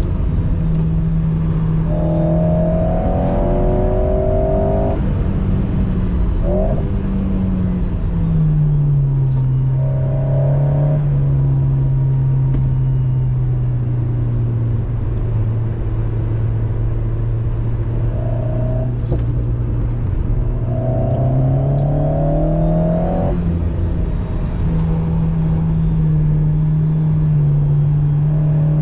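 Alpine A110 Pure's 1.8-litre turbocharged four-cylinder engine heard from inside the cabin, with tyre and road noise. It pulls with rising revs in the first few seconds, drops to a steady lower drone for about ten seconds, then climbs again a little after the twenty-second mark and holds there.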